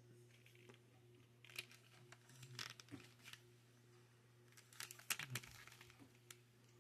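Faint scattered clicks and rustles of handling over a low steady hum, in two short clusters about a second and a half in and again about five seconds in.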